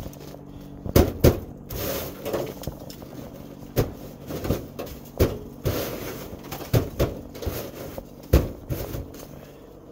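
Snow crunching and scraping on a truck's sheet-metal hood, with irregular knocks against the metal, the sharpest a pair about a second in and one near the end. A faint steady hum sits underneath.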